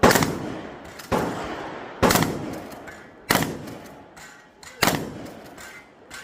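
Shotgun fired five times in a steady string, roughly one shot a second with slightly longer gaps toward the end, each blast followed by a long echo.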